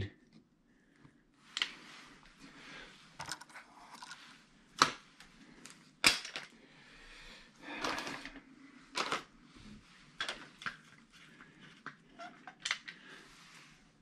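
Dripless caulking gun being squeezed, released and handled while laying a bead of caulk, giving irregular sharp clicks and knocks with quiet rustling between.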